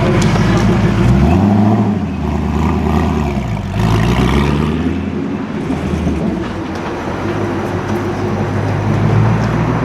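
Sports car engine revving: its pitch climbs about a second in, drops away, climbs again around four seconds in, then settles lower and steadier.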